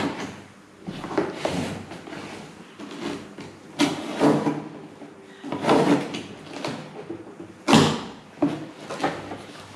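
Pedestal fan parts and their packaging being handled and lifted out of the box: an irregular run of scrapes, rustles and knocks, the loudest about eight seconds in.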